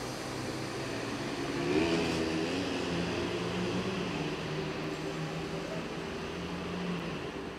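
Passenger train standing at a station platform, giving off a steady mechanical hum with several held tones that waver and swell slightly about two seconds in.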